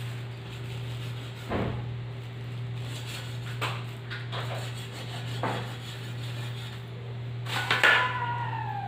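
Kitchen clatter: a few separate knocks, like utensils or pots being handled, over a steady low hum. Near the end there is a louder clatter, then a high whine that falls in pitch, a dog whimpering.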